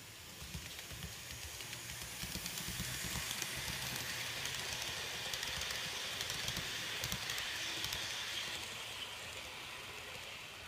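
N-gauge model 211 series train running past on model track: a small motor's hum and wheels clicking over rail joints. It grows louder for the first few seconds, then fades as it moves away.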